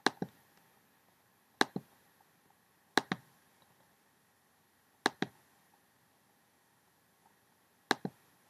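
Computer mouse clicks, five of them spaced a second or two apart. Each is a quick double tick of the button pressing and releasing, with quiet room tone between.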